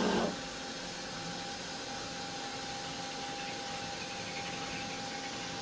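Milltronics TRM3016 CNC mill's spindle turning a 1/2-inch drill as it deepens a hole in a steel ring, run dry without coolant: a steady machine hum with a constant high whine.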